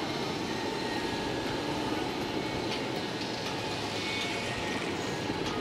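Steady rolling rumble of electric skateboard wheels on asphalt during a ride.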